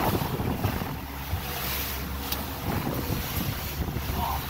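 Honda four-stroke outboard motor running as the boat moves at speed, under a steady rush of wind on the microphone and water along the hull.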